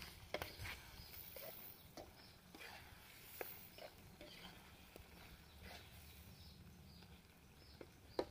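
Faint, scattered clicks and taps of a spatula stirring egg masala in an iron kadai over a wood fire, with a few sharper knocks near the end.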